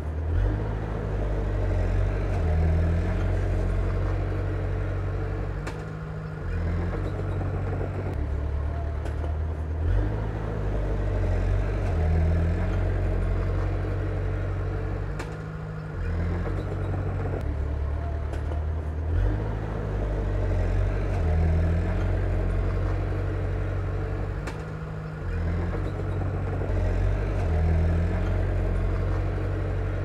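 Komatsu bulldozer's diesel engine working under load as it pushes soil, the engine note swelling and easing every few seconds, with a few faint clanks.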